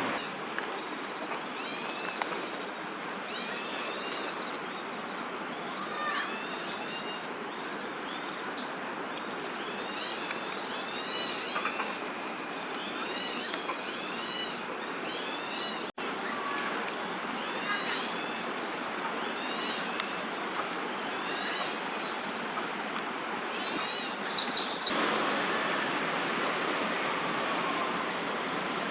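A bird chirps in repeated clusters of short, high, arched notes every second or two, over a steady background hum of city noise. The sound cuts out for an instant about halfway through.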